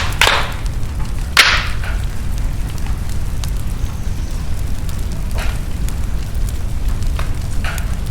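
Fire burning in a fireplace over a steady low rumble, crackling with several sharp pops. The loudest pop comes about a second and a half in.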